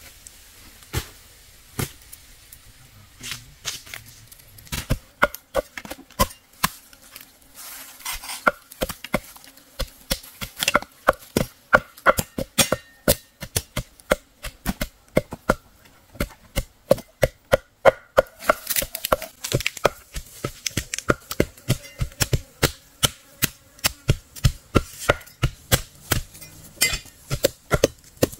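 Knife chopping on a board: a long run of sharp strikes, a few scattered at first, then a steady chopping of several strikes a second from about five seconds in.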